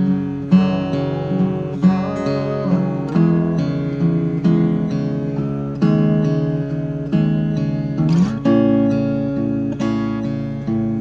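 Guitar music: plucked notes and chords ringing into one another, struck about once or twice a second, with a few notes sliding upward and a brief scrape about eight seconds in.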